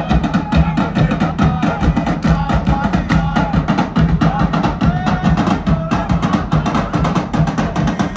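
Drum-led music: many fast, evenly spaced drum strokes with sharp wooden clicks over a low drum tone, going on without a break.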